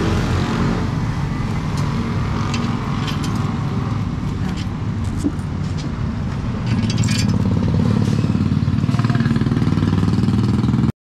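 A road vehicle's engine running steadily nearby, getting louder a little past halfway. Over it come light metallic clinks of bolts and tools being handled while a motorcycle top-box base plate is bolted on.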